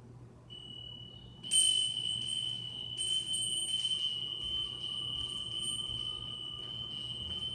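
Small metal bell struck about a second and a half in, ringing on with a steady high, pure tone that barely fades. It sounds at the close of final relaxation, as the signal to come out of it.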